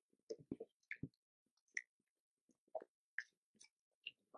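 Rhesus macaque chewing: faint, irregular wet smacks and clicks, about a dozen spread unevenly through the few seconds.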